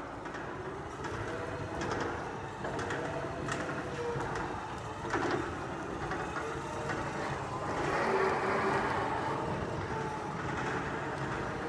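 BT electric reach truck driving and manoeuvring: its electric motor whines, rising and falling in pitch, over a steady rumble, with scattered clicks and knocks. It is loudest about eight seconds in.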